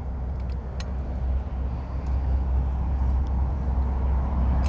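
Steady low rumble of an idling vehicle engine, with a few faint clicks in the first second.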